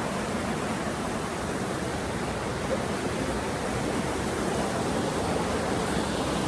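Waterfall water rushing as a steady, even hiss.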